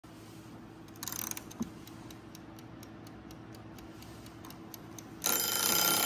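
Wind-up mechanical kitchen timer ticking with fast, even ticks, then its bell ringing loud and metallic about five seconds in as the set time runs out.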